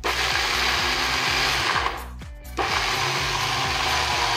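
Small electric food chopper grinding roasted peanuts into paste, its motor and blade running loud and steady in two pulses, stopping briefly about two seconds in.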